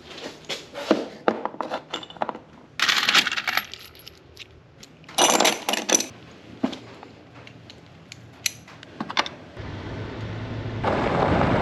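Metal clinking and clattering: a quick run of sharp clinks, then two short bursts of rattling noise. Near the end comes a steady hiss-like noise that grows louder.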